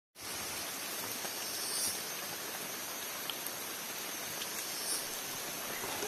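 Steady hiss of rain falling and dripping on forest leaves, with a few faint ticks of single drops.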